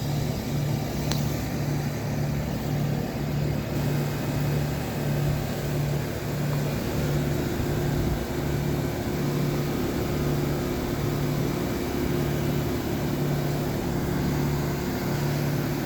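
Carrier Comfort 14 heat pump outdoor unit running through a defrost cycle: a steady hiss with a low pulsing hum, and a second steady tone coming in about seven seconds in.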